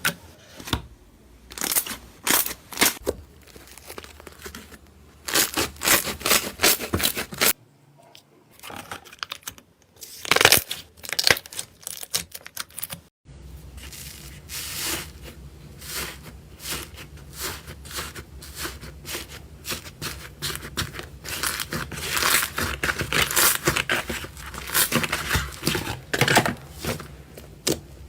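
Slime being squeezed, stretched and poked by hand: sticky crackling and clicking in quick runs, broken by short pauses and abrupt cuts between clips.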